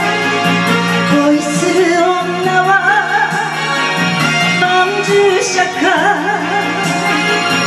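A woman singing into a microphone, her melody wavering with vibrato on held notes, over a karaoke backing track with a steady low accompaniment.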